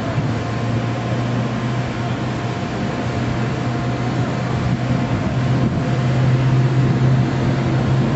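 A low engine hum running steadily and slowly growing louder.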